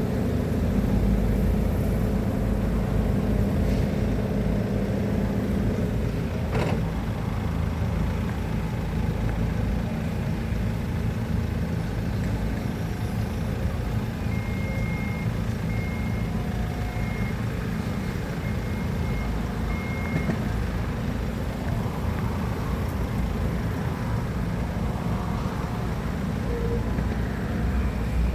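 Heavy equipment engine running steadily under work, with a run of high reversing-alarm beeps about halfway through and a single knock early on.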